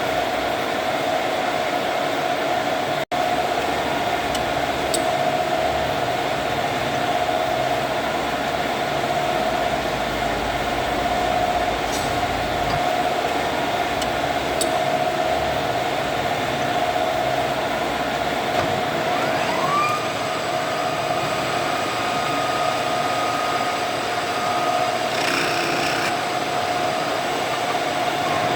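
Metal lathe running with a steady machine whine, a second, higher whine sliding up and then holding for several seconds a little past the middle, and a few faint ticks.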